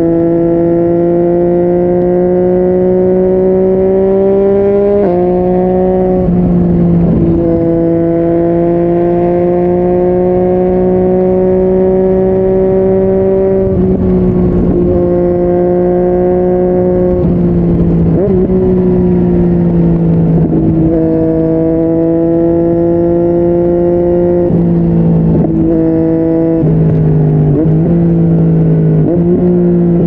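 Yamaha MT-09's three-cylinder engine through a Yoshimura R55 slip-on exhaust, heard while riding at part throttle. The engine note holds or creeps upward, then steps suddenly up or down every few seconds as the gears change.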